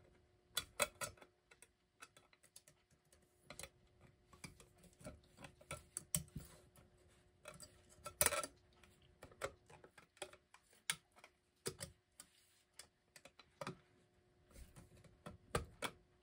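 Irregular light clicks, taps and scrapes of a retaining ring being worked by hand into a clock's dial ring, with a louder clatter about eight seconds in.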